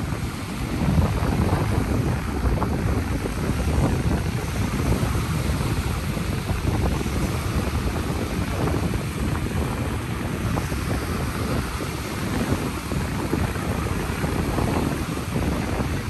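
Ocean surf washing steadily onto a beach, with wind on the microphone adding a low rumble.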